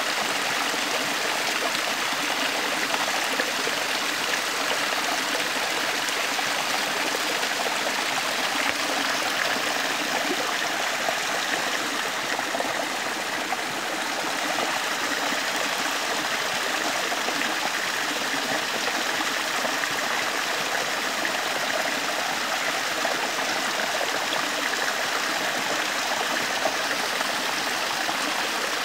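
Small stream running steadily over rocks, water splashing and trickling down a little cascade.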